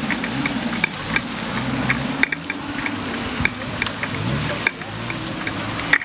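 Off-road 4x4 SUV engine revving up and down under load while it churns through mud and water, over a steady crackling hiss.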